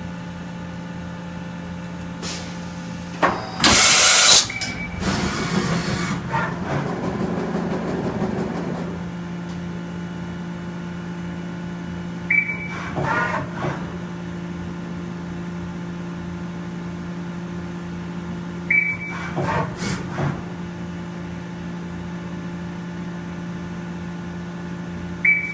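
Mazak VCN 510C vertical machining center running with a steady hum. A loud burst of hiss comes about four seconds in, and shorter bursts follow about every six seconds, each starting with a brief high tone.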